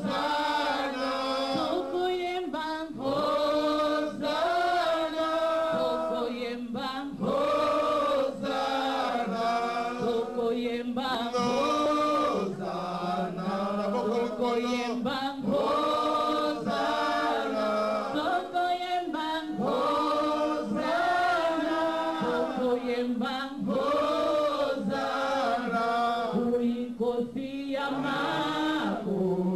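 A group of church worship singers sings a repeated praise chant in short phrases of about two seconds, the voices rising and falling together.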